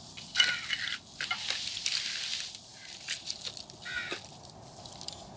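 Wooden spatula stirring crab pieces in their shells through curry in a wide metal pot: irregular clicks and scrapes of shell against spatula and pan, over a light sizzle.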